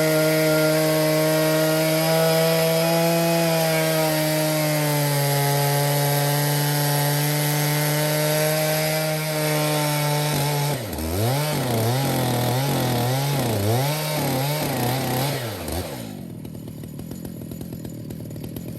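Stihl chainsaw on an Alaskan mill running at full throttle under load, ripping along a cedar log. Partway through, its engine speed starts rising and falling repeatedly, about once a second, and near the end it drops back to idle as the slab cut is finished.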